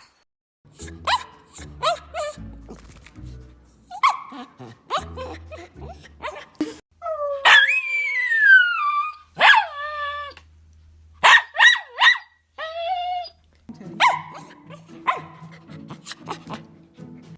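Dogs barking in a string of short clips, with high yips and a couple of long whines that fall in pitch about halfway through. Background music plays underneath.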